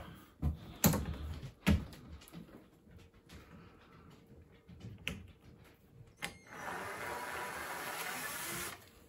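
Cordless drill-driver running for about two seconds near the end, backing a screw out of a wooden batten, after a few sharp knocks of handling the tool and batten.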